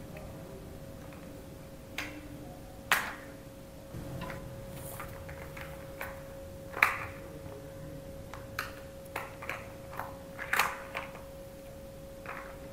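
Plastic toy cars clacking against each other and against a plastic toy track as they are handled, about ten irregular sharp knocks, the loudest about three seconds in and about seven seconds in. A steady faint hum runs underneath.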